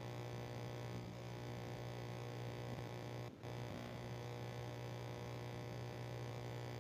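Steady electrical mains hum with a buzzy, many-toned quality, briefly dropping out about three seconds in.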